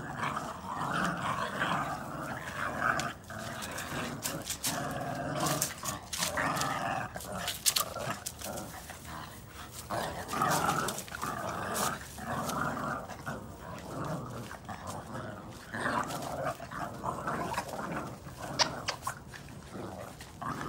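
Several Boston terrier puppies growling in play as they pull together on a chew ring, in uneven rasping spells with short pauses and scattered sharp clicks. The growls are play, not aggression.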